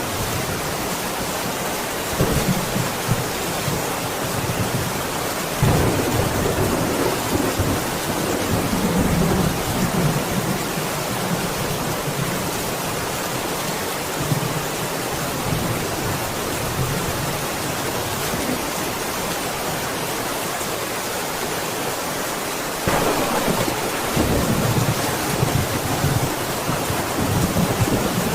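Steady heavy rain with rolling thunder: low rumbles swell up about six seconds in and again near the end, over a constant hiss of rainfall.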